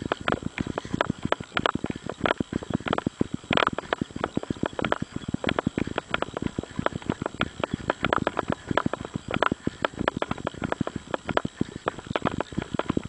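A runner's footfalls on a dirt and gravel road, a fast, uneven train of steps, with the runner's breathing.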